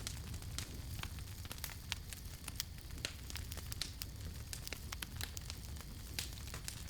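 Campfire crackling: irregular sharp pops and snaps, several a second, over a low steady rumble.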